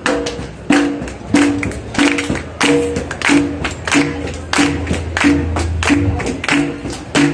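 Wind band of brass and woodwinds playing a cumbia: short, repeated notes on a steady beat of about one and a half beats a second, with a sharp hit on each beat.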